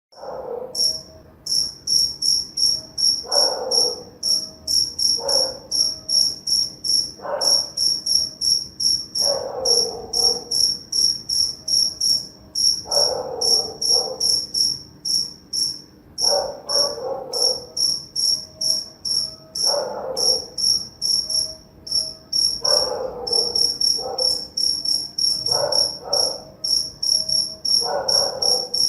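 A cricket chirps steadily in rapid, high-pitched pulses throughout. Under it, a dog barks or yelps over and over, roughly once every two seconds.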